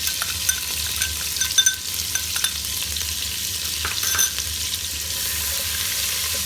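Ginger-garlic paste frying in melted butter with a steady sizzle. A spoon stirring it clicks against the pan a few times, loudest about a second and a half and four seconds in.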